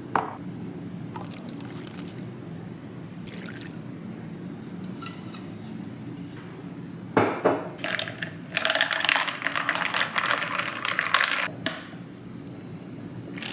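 Iced matcha latte being poured over ice: after a few faint clinks of a straw against ice, a sharp knock on the counter about seven seconds in, then liquid and ice pouring and splashing for about four seconds.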